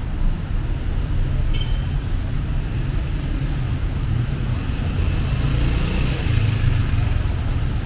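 City street traffic: a steady low rumble of engines and tyres, with one vehicle passing more loudly about five seconds in.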